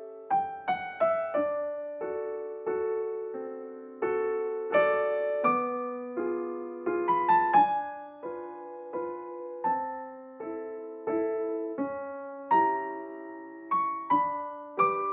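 Background music: a slow solo piano melody with chords, notes struck one after another and left to ring.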